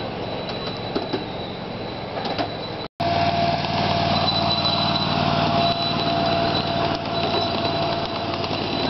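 Ridable 1.5-inch scale model train rolling past on its track. After a cut about three seconds in, a diesel-style locomotive's small engine runs steadily with a steady whine as the locomotive and its riding cars pass close by.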